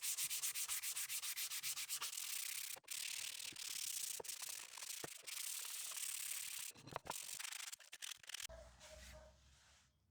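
Hand sanding: sandpaper rubbed back and forth in quick, rhythmic strokes, with short pauses, stopping about eight seconds in. A faint low hum follows near the end.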